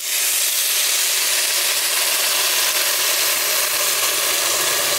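Water poured into the hot, oiled pot of a Krups Cook4Me+ multicooker over frying quinoa and vegetables: a steady sizzling hiss that starts suddenly as the water hits the pot.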